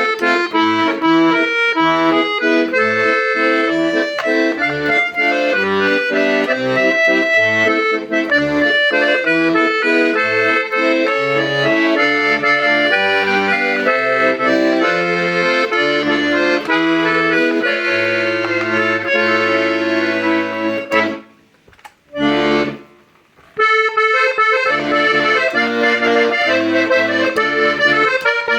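Hohner Concerto I accordion playing a tune: a melody over a rhythmic bass-and-chord accompaniment. About three-quarters of the way through it breaks off for a couple of seconds, sounds one short chord, then plays on.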